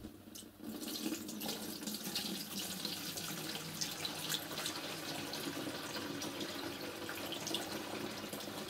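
Diesel fuel pouring steadily from a plastic jerrycan through a funnel into the fuel tank of a portable diesel air heater.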